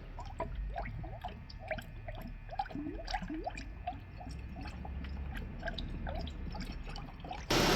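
Fresh coolant being poured into a car's coolant reservoir, trickling and gurgling with many small bubbling blips. Near the end it cuts suddenly to a loud, steady engine and fan noise.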